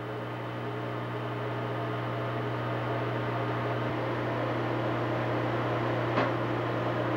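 A steady low hum with hiss over it, several held tones at once, slowly growing louder, with one short sharp click about six seconds in.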